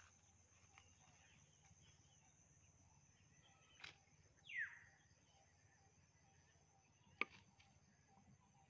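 Near silence outdoors, broken by a short falling whistle about halfway through and two sharp clicks, one just before it and one near the end.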